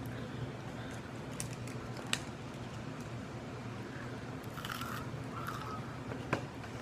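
Close-up eating sounds of Doritos Loaded cheese bites being chewed: a few sharp crunches and clicks and a short rustle about two-thirds in, over a steady low background hum.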